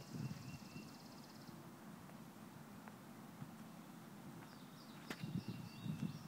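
Small birds singing outdoors: a high buzzy trill that stops after about a second and a half, then near the end a run of short falling chirps. An uneven low rumble sits underneath and is loudest near the end.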